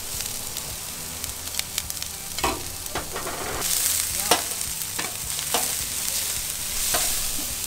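Minced shallots, garlic and ginger sizzling in hot olive oil in a stainless steel paella pan, with a metal spatula scraping and clicking against the pan as they are stirred. The sizzle grows louder about halfway through.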